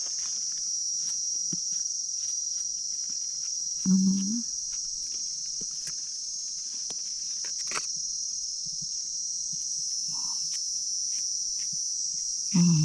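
Insects droning steadily at a high pitch, with scattered small clicks and rustles. A short vocal sound from a person comes about four seconds in, and another near the end.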